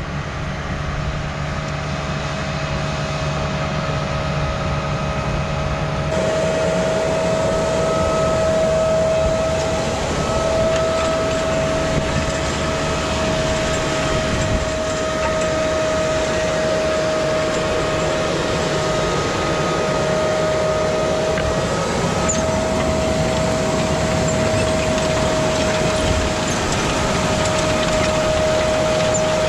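Case IH 150 tractor running under load while pulling a maize seed drill. It grows louder over the first several seconds as it comes closer, then holds steady, with a steady whine over the engine noise.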